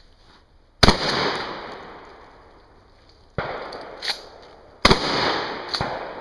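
Remington 870 pump-action shotgun firing three shots, about a second in, about three and a half seconds in and about five seconds in, each blast trailing off in a long echo. Fainter sharp clicks come between the last shots.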